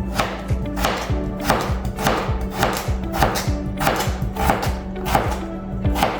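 Kitchen knife chopping through raw potatoes on a cutting board, cutting French fries, about two chops a second, over background music.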